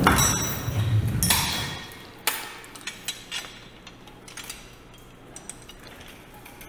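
Metal clinks and knocks of a steel spreader bar, its hooks and a hoist chain being handled at a carcass's legs. The clatter is loudest in the first two seconds, with one sharp clink a little after, then scattered lighter clinks.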